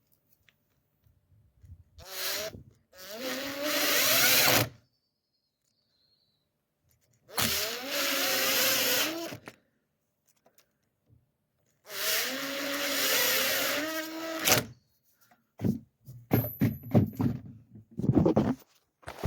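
Power drill running in three bursts of two to three seconds each, its motor pitch sagging and recovering as the bit cuts: countersinking screw holes for a door hinge. Near the end comes a quick run of short blips and clicks.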